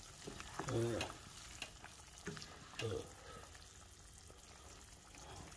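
Wooden spoon stirring pork and chicken adobo in an enamel pot while the sauce sizzles and simmers faintly. A brief murmur of voice comes about a second in and again near three seconds.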